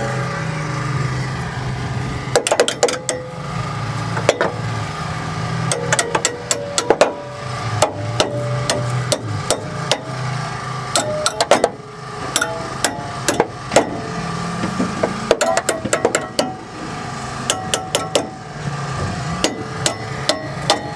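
Hammer blows on the steel of a Ford Mondeo banger racing car: a long run of irregular sharp strikes, some single, some in quick clusters, many leaving a short metallic ring.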